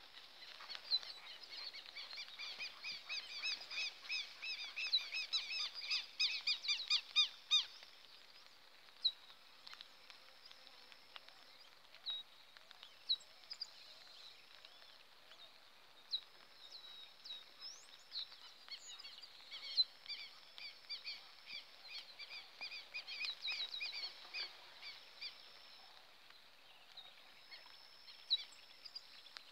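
Bird song: a fast run of high chirping notes lasts several seconds, gives way to scattered single chirps, and then comes back for a second long run.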